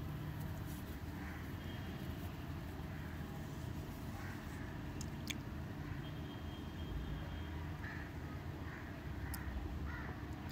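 Hot oil sizzling faintly as pakoras deep-fry in a clay pot, with a few small sharp pops around the middle and near the end.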